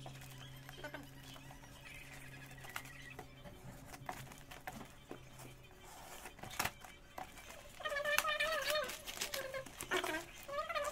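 Hands moving and turning a cardboard box wrapped in packing tape: light taps and rustles of cardboard and tape, with one sharp knock about two-thirds of the way through, over a steady low hum that stops about halfway. From about eight seconds in, a louder warbling call sounds repeatedly.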